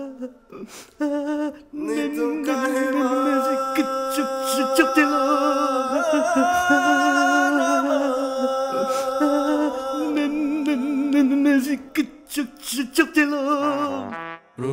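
A man wailing and sobbing in long, wavering, sing-song cries, with choked words among them. It breaks up into short sobs near the end.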